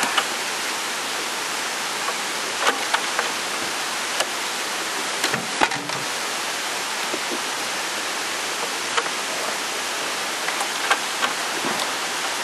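Steady rushing hiss like running water, with a dozen or so scattered light knocks and clicks from gear being handled in the boat, the loudest about halfway through.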